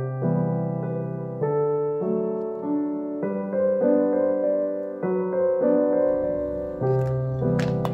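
Background piano music, a slow run of held notes and chords, with a few light clicks near the end.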